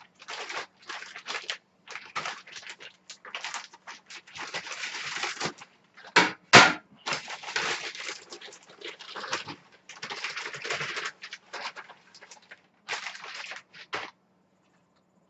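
Plastic mailer bag rustling and crinkling in irregular bursts as a T-shirt package is opened and unpacked, with two sharp, loud noises about six seconds in.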